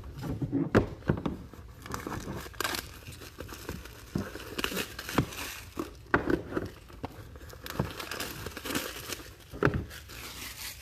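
Plastic wrapping crinkling and tearing in irregular handling, with sharp crackles: a sealed trading-card box being unwrapped.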